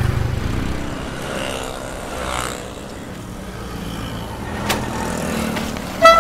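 Street traffic noise with a low vehicle engine rumble. An auto-rickshaw drives past near the end, with a single sharp click a little before.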